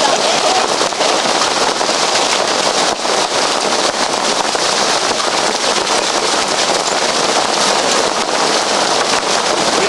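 Hail falling hard: a dense, steady clatter of hailstones striking surfaces.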